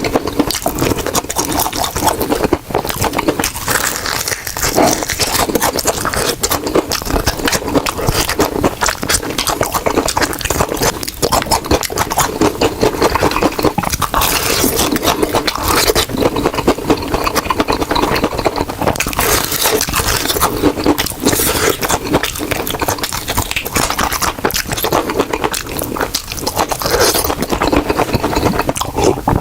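Crispy fried chicken being bitten and chewed close to the microphone: dense, irregular crunching and crackling of the fried coating, going on without a break.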